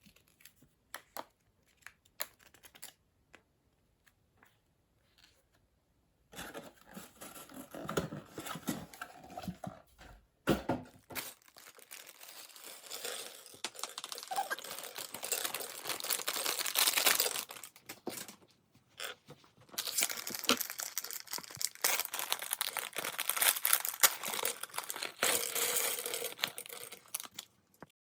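Plastic bags of Lego pieces being torn open and crinkled. A few scattered small clicks come first, then long stretches of steady crinkling.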